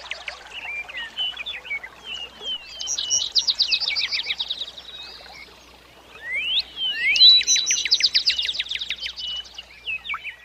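Songbird singing: scattered high chirps, then a rapid trill of repeated notes about three seconds in, quick rising whistles, and a longer trill about seven seconds in.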